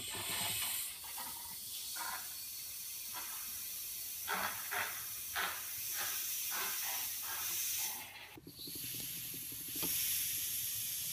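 Steady hiss of air fed through the intake of a handheld pressure pump as it pressurizes a boost gauge, with a few short clicks in the middle and a brief drop near the end.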